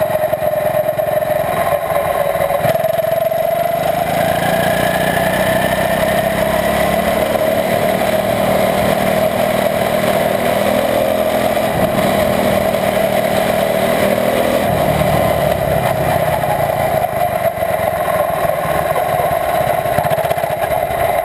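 Single-cylinder four-stroke Honda engine of a Senior Honda quarter midget, heard from an onboard camera, running steadily at moderate speed with little revving.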